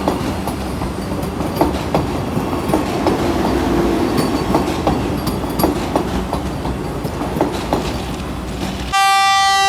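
A train rolling past with a steady rumble and wheels clacking over rail joints. About nine seconds in, a loud train horn starts suddenly.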